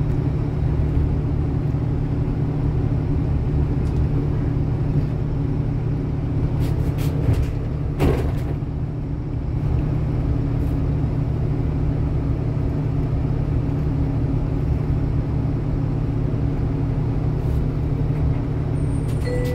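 City bus engine and running gear rumbling steadily, heard from inside the passenger cabin while riding, with one brief sharp noise about eight seconds in. A short electronic chime begins right at the end.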